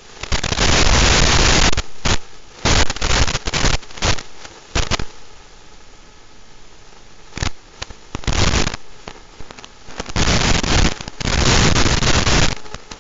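Loud bursts of static hiss from an analog FPV video receiver, cutting in and out abruptly, from a fraction of a second to nearly two seconds long, with the longest near the start and near the end. The bursts are the sign of the drone's analog video link breaking up.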